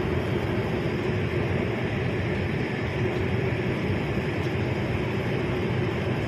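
Steady cabin drone of an airliner in flight: engine and airflow noise with a constant hum.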